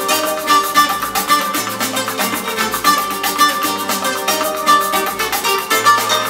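Music with rapid, evenly repeated plucked notes, played through a pair of Aurelia Magneta II bookshelf loudspeakers and picked up by a camera's built-in microphone.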